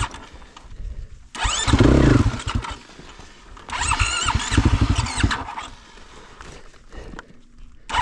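KTM 500 EXC single-cylinder four-stroke dirt bike engine revved hard in two bursts, about a second and a half in and again around four seconds, dropping back to a low idle between and near the end, as the bike is worked across deep, slippery ruts on a steep climb.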